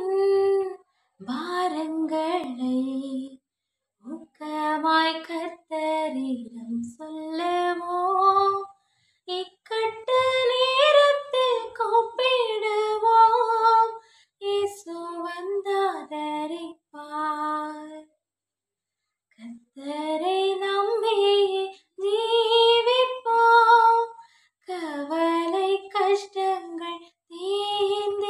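A woman singing a Tamil Christian devotional song unaccompanied, in phrases of held, bending notes with short silent breaths between them.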